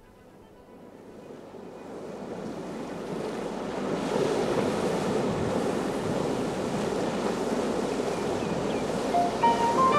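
Ocean surf, a steady wash of waves, fading in over the first few seconds and then holding level. Near the end a few short musical tones come in over it.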